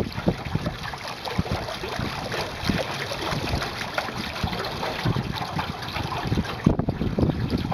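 Water splashing and trickling against the hull of a Grumman aluminum sailing canoe moving under sail, with irregular small slaps, and wind buffeting the microphone.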